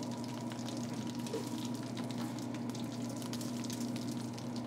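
A steady low hum from kitchen equipment with a faint crackling hiss over it, and soft handling of salted raw tuna steaks in a stainless-steel pan.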